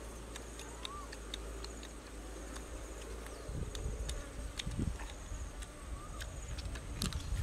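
Steady high-pitched insect trilling in the background, with scattered sharp clicks and smacks of eating as roasted duck is chewed and pulled apart by hand.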